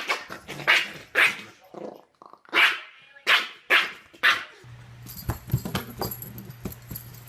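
A dog barking, about seven sharp barks in the first four and a half seconds. After that, a steady low hum with faint small knocks.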